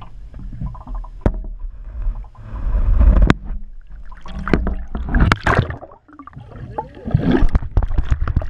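Water gurgling and sloshing as heard by a submerged GoPro in its waterproof housing, muffled with a heavy low rumble. Several sharp knocks against the housing.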